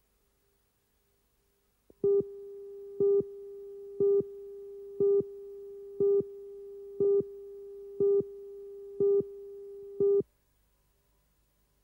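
Countdown leader tone from a broadcast commercial tape: a steady mid-pitched tone with a louder beep on each second of the count, nine beeps in all. It starts about two seconds in and cuts off at the count of two, just before the commercial begins.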